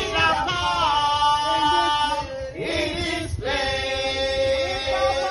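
A group of men and women singing a gospel chorus together, holding long notes with a short break a little past halfway.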